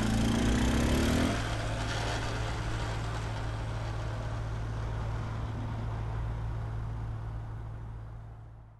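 Small step-through motorbike pulling away, its engine revving up over the first second or so, then fading steadily as it rides off until it is gone near the end.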